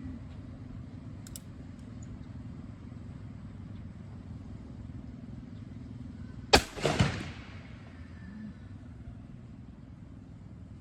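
A single shot from a long-barrelled Colt Navy cap-and-ball revolver about six and a half seconds in, its report trailing off over about a second. Wind rumbles steadily on the microphone throughout.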